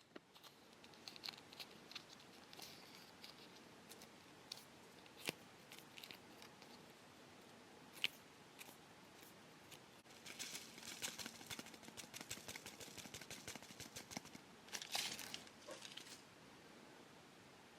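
Plastic packets of a candy kit being handled: scattered light taps and clicks, then a stretch of dense crinkling and rustling from about ten seconds in, loudest a few seconds later.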